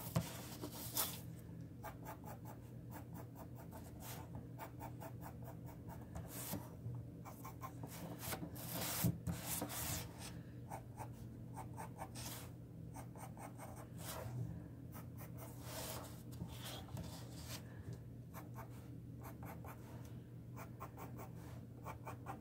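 Pencil lead scratching on paper in many short, quick, light strokes as fine radiating iris lines are drawn, over a faint steady low hum.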